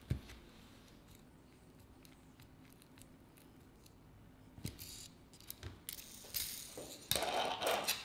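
Small mechanical sounds of a fingerboard being handled: a sharp knock at the start, faint clicks of a small screwdriver working the truck screws, then, from about halfway, louder clicking and rattling with two stretches of rolling noise near the end as the fingerboard's little wheels run across a tabletop.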